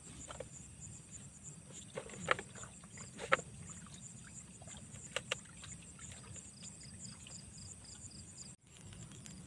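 Night insects, crickets among them, chirping steadily in even, high-pitched pulses, with a brief trill of about four chirps a second near the end. A few sharp clicks come through.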